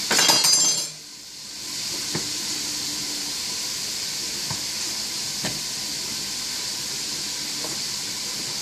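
Steady sizzling hiss of onion, carrot and celery sautéing in a pot on the stove. A short metallic clatter in the first second, and a few faint taps of a knife on a wooden cutting board.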